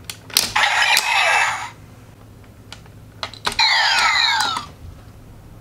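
Electronic sound effects from a CSM Kamen Rider W Double Driver toy belt's speaker as it is worked by hand: two bursts of about a second and a half each, each starting with plastic clicks and carrying quickly falling electronic tones.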